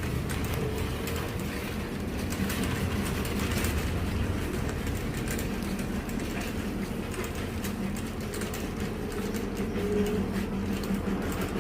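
Steady low rumble of a car heard from inside the cabin: engine and road noise with a faint steady hum.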